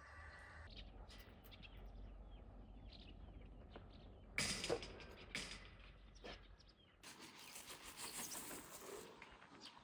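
Faint rural outdoor ambience with scattered bird chirps and a few short knocks or scuffs, loudest about four and a half to five and a half seconds in. The background changes abruptly about seven seconds in.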